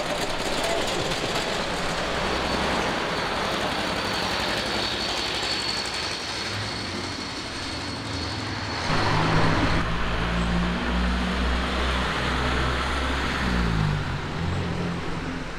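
Cars driving past on a village road: a veteran car chugging away, then a wood-bodied estate car whose engine grows louder about halfway through and drops in pitch as it passes near the end.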